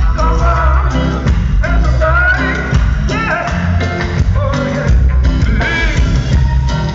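A live band playing: a male lead singer sings over a steady bass line, guitar and a drum kit.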